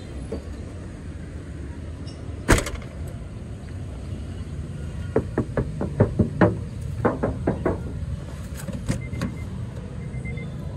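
Car door handled with one sharp thud about two and a half seconds in, then a quick run of a dozen or so clicks and knocks around the middle. Faint short beeps come about once a second near the end, over a steady low rumble.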